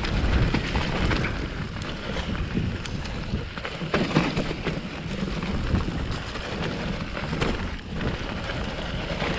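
Commencal Meta AM mountain bike descending a dirt singletrack: tyres rolling and crunching over dry fallen leaves, with a few knocks from bumps along the way. Wind rushes over the action-camera microphone.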